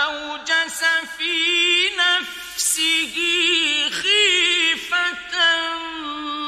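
Male Quran reciter chanting in the mujawwad style: long held notes with melismatic, wavering ornaments, broken by short pauses between phrases.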